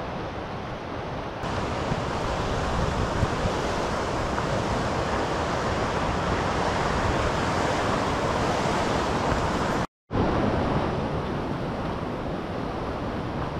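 Steady rushing outdoor noise with no speech, cut off for a moment about ten seconds in.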